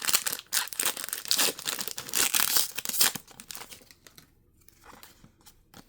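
Foil Pokémon booster pack wrapper crinkling and tearing as it is ripped open, a run of loud rustles over the first three seconds, then only faint handling.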